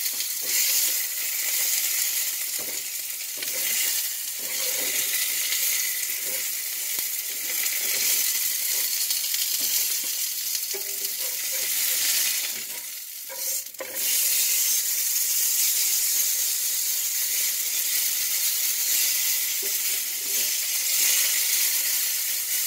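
T-bone steak searing in a hot greased frying pan on a stovetop: a steady, loud sizzle that dips briefly a little past halfway through.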